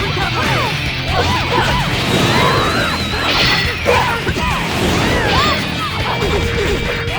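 Soundtrack music mixed with sound effects: a dense, busy bed of many short sliding tones and hits over a steady low pulse, with a wavering high tone a little past two seconds in.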